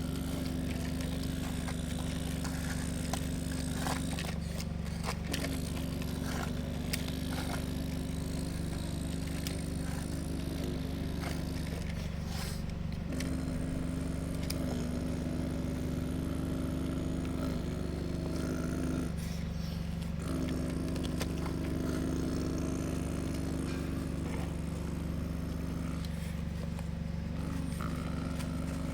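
Excavator at work: a steady motor hum whose pitch dips briefly about every seven seconds as it takes load, with scraping and small clicks of the bucket in dirt.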